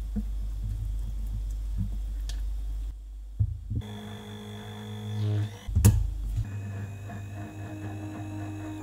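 A spatula stirring powdered mugwort into liquid in a glass bowl, with faint scraping ticks over a steady low hum. After a break, a stick blender runs in the mixture with a whirring motor tone, with a louder burst and a sharp knock about six seconds in.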